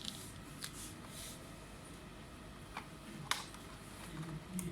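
Hands handling objects: a few scattered light clicks and taps, the sharpest a little past three seconds in, over faint room noise.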